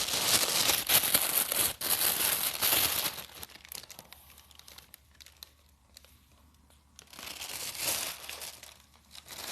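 Packaging being crumpled and crinkled by hand: dense crackling for about the first three seconds, then quieter handling, with a second burst of crinkling around eight seconds in.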